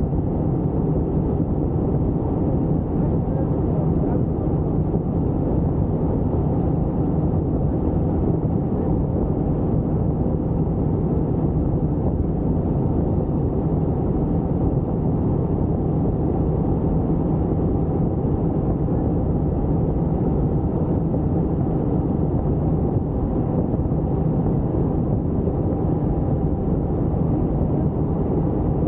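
Helicopter in flight: the steady drone of its rotor and engine, a low hum that stays level without change.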